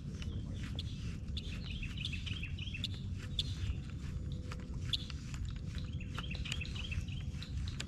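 Birds chirping in short repeated phrases over a steady low rumble, with scattered faint clicks.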